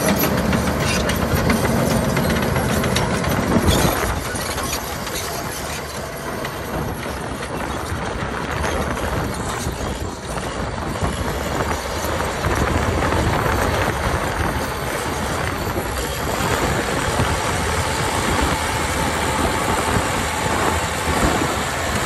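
Crawler bulldozer's diesel engine working under load while its steel tracks clatter as it pushes dirt. Louder over the first few seconds, it eases off, then builds again.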